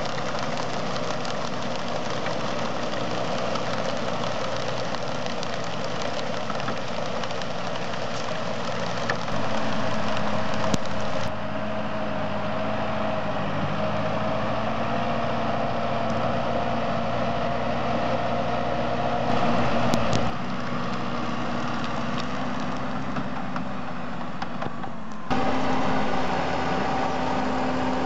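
Valtra 6250 tractor's diesel engine running steadily while it pulls and drives a manure spreader. The sound changes abruptly in level and tone four times.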